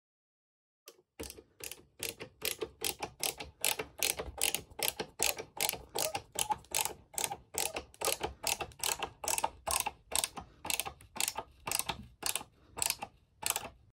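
Stanley ratcheting screwdriver driving screws into wall plugs, its ratchet clicking steadily about three times a second, starting about a second in.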